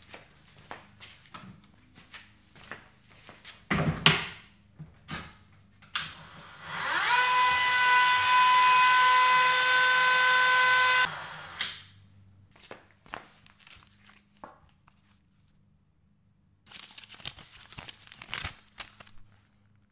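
A small electric motor whirs up to speed, runs with a steady whine for about four seconds and cuts off suddenly, preceded by footsteps and a loud knock. Near the end comes a short stretch of scratchy rustling from paper being handled or written on.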